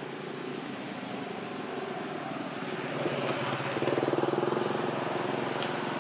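A motor engine running steadily, growing louder about halfway through as if coming nearer, then easing off a little toward the end.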